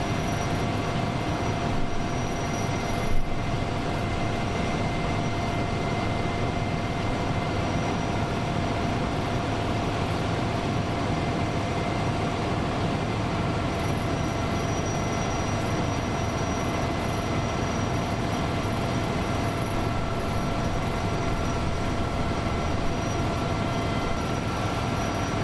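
A steady mechanical hum and rushing noise with a constant whine, like motors running at an even speed; a single short thump about three seconds in.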